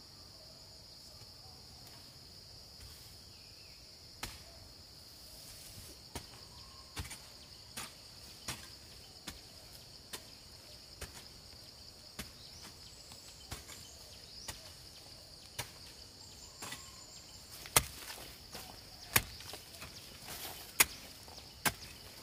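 Steady high-pitched drone of insects, with a series of sharp knocks roughly once a second that begin a few seconds in and grow louder near the end.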